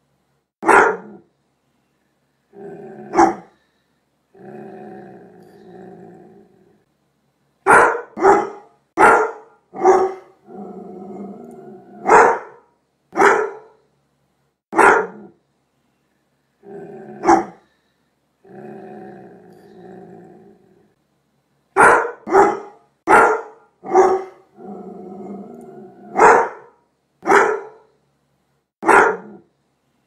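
Large Doberman Pinscher barking in sharp single barks and quick runs of two or three, with low growls of one to two seconds between them.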